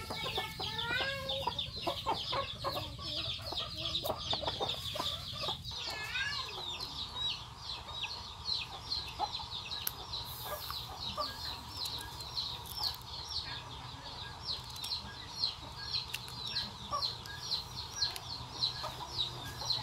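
Chickens calling: a steady run of short, high peeps, about four a second, with lower clucking calls in the first few seconds.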